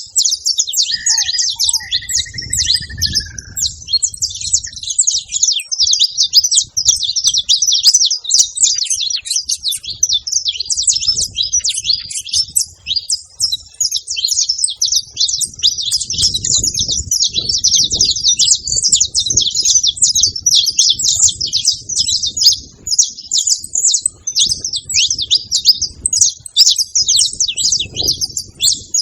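Saffron finches chirping in a dense, continuous high-pitched chatter, as of several birds together. A lower, slurred whistle from another bird sounds briefly about a second in.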